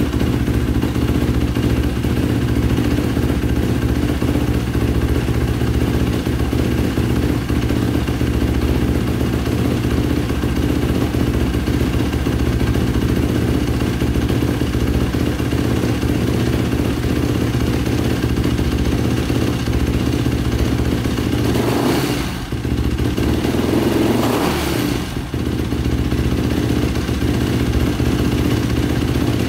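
The big-bore single-cylinder four-stroke engine of a 2005 Yamaha YFZ450 idling steadily through an aftermarket exhaust after a rebuild, no longer stalling as it had before. About three quarters of the way through, the note changes briefly twice.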